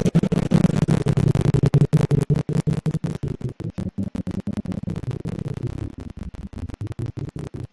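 Muffled low hum inside a moving elevator cab, the audio choppy and garbled with many brief dropouts.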